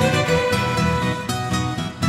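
Instrumental background music with sustained melody notes over an even, rhythmic low pulse.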